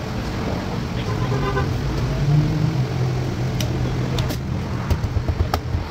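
Plastic retaining clips of an Audi A4 door panel snapping into the door as the panel is pressed back on: a handful of sharp clicks in the second half, over a steady low hum.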